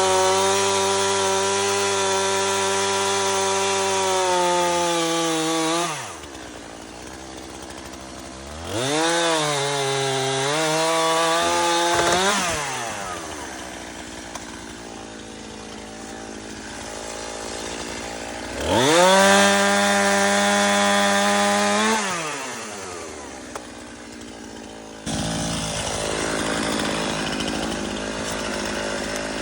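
Two-stroke gas chainsaw revved up and held at high speed three times, dropping back to a low idle in between. About 25 s in, the sound switches suddenly to a steady hiss.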